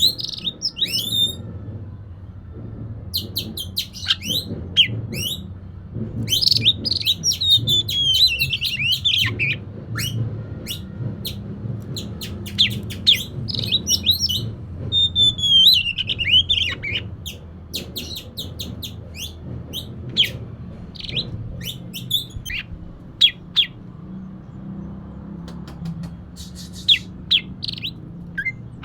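Oriental magpie-robin (kacer) singing: a fast run of sharp high chips and clicks, broken twice by longer falling whistled phrases, over a steady low hum.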